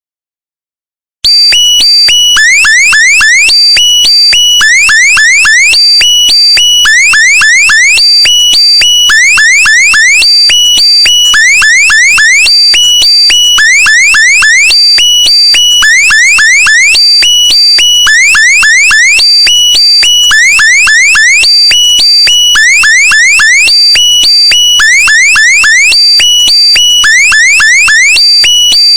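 A loud electronic alarm-like meme sound effect, starting about a second in and looping: a quick run of rising chirps then a held high beeping tone, repeating about every two and a quarter seconds.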